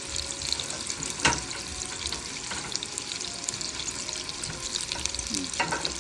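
Flour-dusted beef shank searing in hot oil in a ceramic non-stick pan, sizzling and crackling steadily. A sharp knock about a second in and a click near the end.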